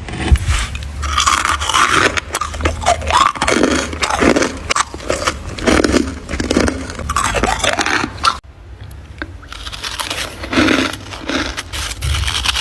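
Crispy freezer frost being bitten and chewed close up: dense, irregular crunching, with a brief quieter lull about eight and a half seconds in.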